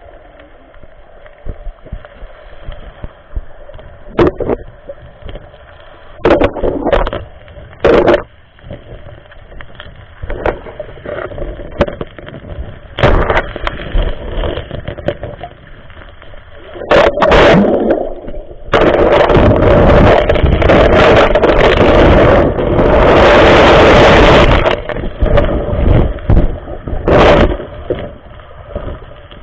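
Muffled water noise around a camera held underwater in the sea: scattered knocks and swishes, then a long, loud rush of water lasting several seconds past the middle.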